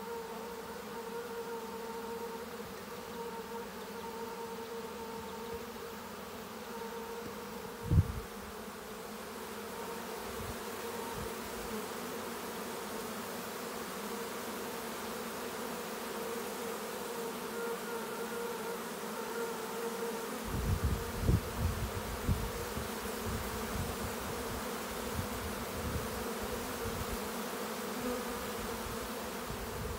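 Many honeybees buzzing as they fly around and crowd over a hive box: a steady hum with a clear pitch. A sharp low thump comes about eight seconds in, and a cluster of low thumps follows around two-thirds of the way through.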